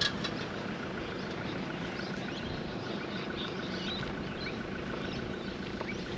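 A steady low mechanical hum, like an engine running, with short high bird chirps scattered over it.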